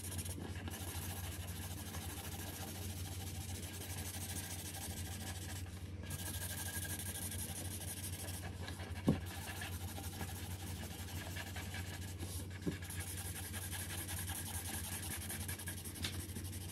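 Felt-tip markers scribbling on paper in quick colouring strokes, a steady scratchy rubbing with a few brief pauses and a couple of light taps.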